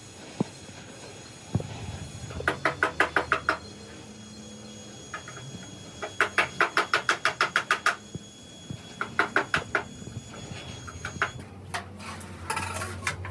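Rapid metal-on-metal tapping in three quick runs of strikes, about eight a second, with a few single knocks between them.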